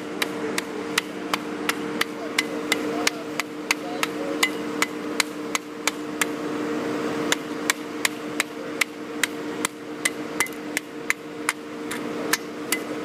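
Road-paving machinery running: a steady hum with a sharp, regular tick about three times a second.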